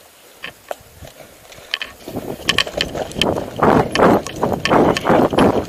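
Footsteps on sand with gear rattling and clicking, quiet at first and then a quick, loud, steady tread of about two to three steps a second from about two seconds in.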